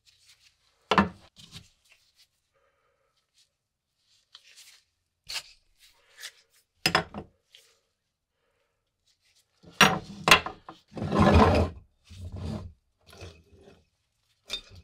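Handling noise of a rusty steel spike bayonet and tools on a wooden workbench: a sharp knock about a second in, a few scattered clinks and taps, then a busier run of knocks and rustling in the last five seconds as tools are picked up.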